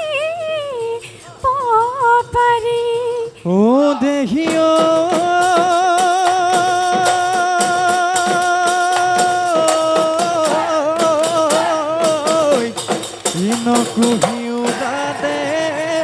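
Live Bihu folk music: a woman sings a wavering melody line at the start, then a long held, wavering melodic note carries over steady dhol drum beats and bamboo clapper strokes, dropping to a new pitch about halfway through.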